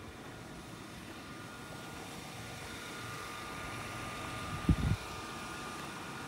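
Steady machine drone, like an engine running, with faint steady tones rising in the mix partway through, and a brief low thump near the end.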